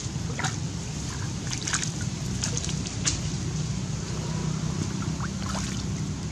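Small splashes and sloshing of water as a macaque swims and ducks under, several short splashes scattered through, over a steady low rumble.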